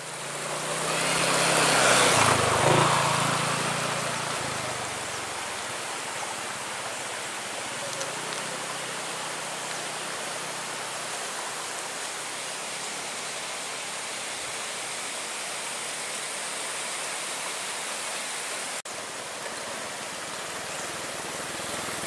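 Steady rush of a shallow rocky stream flowing. A low hum sounds under it for the first few seconds and fades out.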